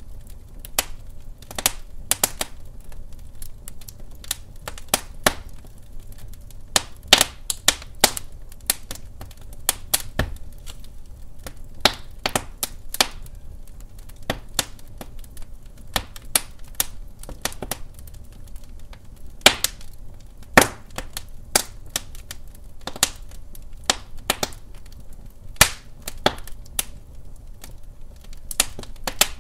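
Wood fire crackling: irregular sharp pops and snaps, some much louder than others, over a low steady rumble.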